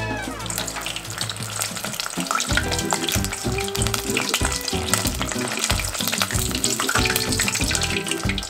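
Strips of kahawai sizzling and crackling as they fry in hot oil in a pan, with background music coming in low beneath about two seconds in.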